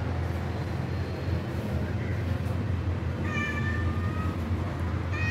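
A cat meowing twice, two drawn-out calls about two seconds apart, the second near the end, over a steady low hum.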